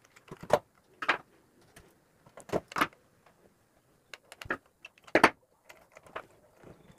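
Handling noises of wiring an extension socket board: several sharp, irregular clicks and scrapes of wire and tools against the plastic board and its metal screw terminals as the yellow earth wire is fitted.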